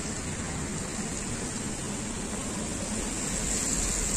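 Traffic on a wet road: a steady hiss of tyres on wet asphalt. The hiss swells near the end as a vehicle passes close by.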